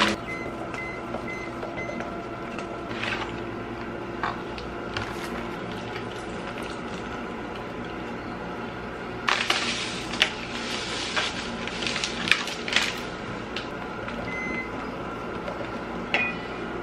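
Wooden chopsticks stirring thick batter in a stainless steel bowl, clicking and scraping against the metal, busiest about nine to thirteen seconds in. A steady low hum runs underneath.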